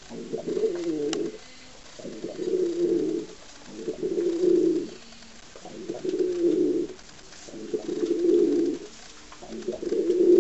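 Domestic pigeon cooing: about six low, rolling coos, each lasting about a second and repeated roughly every two seconds.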